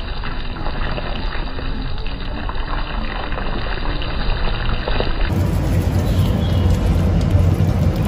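Hot caramel sizzling and bubbling in a pan as it is stirred, with crackling like rain on a surface. About five seconds in the sound changes abruptly and a heavy low rumble comes in.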